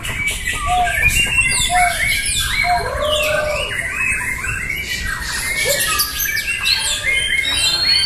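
Several caged white-rumped shamas singing at once in contest, a dense, overlapping mix of loud whistles, sweeping notes and rapid trills. A lower note repeats about once a second through the first few seconds.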